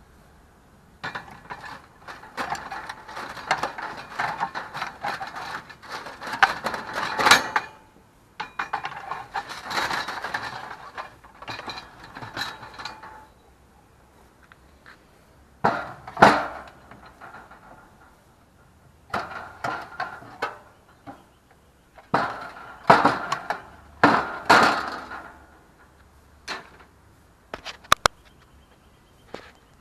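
Hard objects clattering and scraping in several bursts of quick knocks, the longest in the first half, with quiet gaps between them and a single sharp click near the end.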